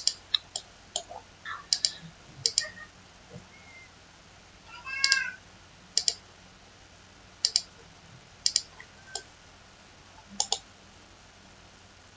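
Computer mouse clicks, about a dozen, many as quick press-and-release pairs, made while selecting planes and confirming each power-copy instance in CATIA. About five seconds in there is one short high-pitched cry lasting about half a second.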